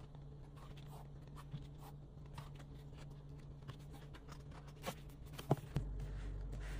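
Pages of a glossy album photobook being flipped by hand: faint paper rustling and light ticks, with a couple of sharper clicks about five seconds in, over a low steady hum.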